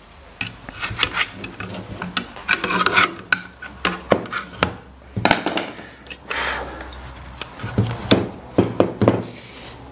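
A screwdriver poking and pushing fibreglass packing into the opened sheet-metal silencer of a Derbi Variant moped exhaust: irregular scraping and rubbing with scattered sharp clicks of metal on metal.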